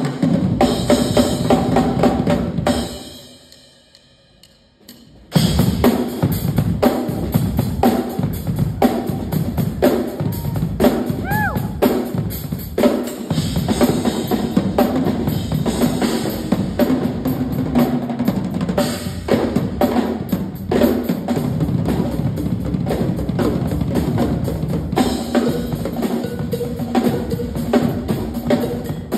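Two acoustic drum kits played together in a duet: dense kick, snare and cymbal playing. About three seconds in the playing dies away for roughly two seconds, then both kits come back in together at full volume.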